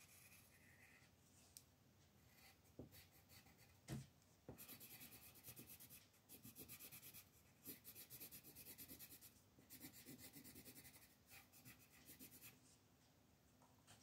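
Coloured pencil shading on colouring-book paper: soft scratchy strokes in quick back-and-forth runs, broken by short pauses, with a light tap of the pencil about four seconds in.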